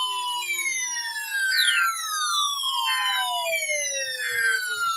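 Emergency Alert System tones: three short, buzzy SAME digital header bursts, each about 1.3 seconds after the last. Under them runs a continuous siren-like sweep of overlapping tones that keep gliding down in pitch.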